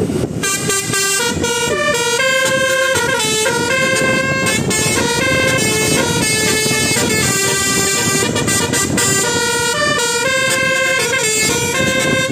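Telolet basuri multi-tone bus air horn playing a fast melody, its notes changing several times a second, over a steady low rumble.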